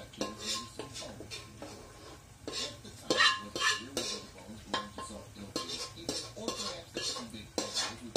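A metal spoon or ladle clinking and scraping against a pan and bowl as food is stirred and scooped: a quick, irregular run of clinks, some with a short metallic ring, loudest a little after three seconds in.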